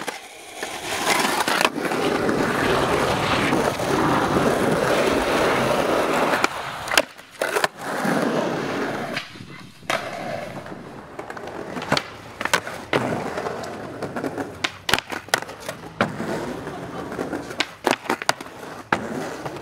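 Skateboard wheels rolling loudly over rough concrete for the first six seconds, then sharp clacks of the board popping, hitting and landing on concrete, coming thick and fast in the second half with quieter rolling between.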